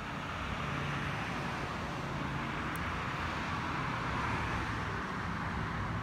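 Steady outdoor noise of distant vehicle traffic, a hiss with a low hum beneath it, getting a little louder about half a second in.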